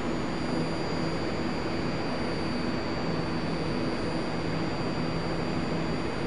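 Steady interior noise of a BART Bombardier car standing at the platform: the even rush of the ventilation with a low electrical hum and a faint, high, steady whine.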